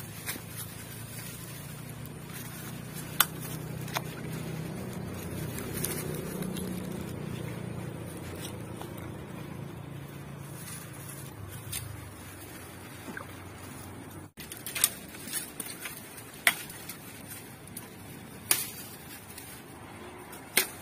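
Hands splashing and stirring in shallow river water, with scattered sharp clicks and knocks. A low drone swells and fades over the first half.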